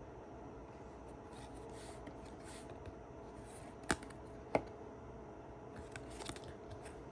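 Trading cards being slid and handled, with soft swishes and two sharp clicks about four and four and a half seconds in.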